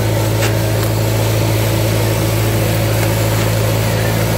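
JCB backhoe loader's diesel engine running steadily at idle close by, an even hum with no change in speed.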